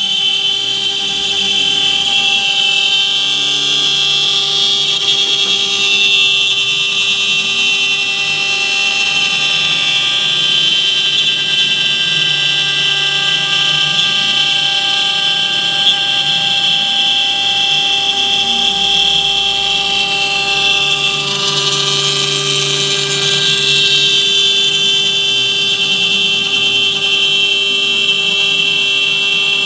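AXYZ CNC router spindle running with a steady high-pitched whine while its small end mill cuts a circular groove in a wooden board, with a hiss of cutting noise over it.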